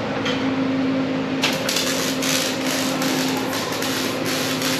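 Steady mechanical hum of running shop machinery, with a hissing noise joining about a second and a half in.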